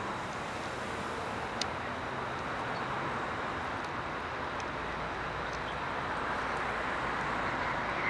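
Steady rush of passing street traffic, with no single vehicle standing out and a faint click about one and a half seconds in.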